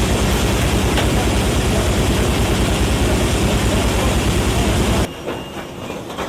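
Sawmill multi-blade gang saw cutting timber: loud, dense machine noise with a fast, even low throb. About five seconds in it cuts off abruptly to a much quieter machine sound.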